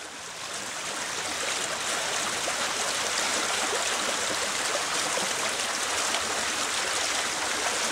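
Flowing water, a steady rushing that fades in over the first couple of seconds.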